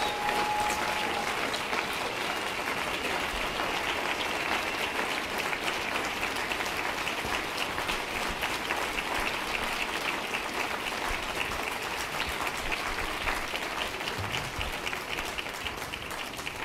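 Large audience applauding: dense, sustained clapping that eases off slightly near the end.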